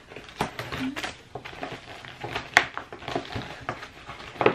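Crinkling and rustling of a USPS Priority Mail envelope and the small bag of jewelry being packed into it, in many short crackles. There is one sharp click about two and a half seconds in.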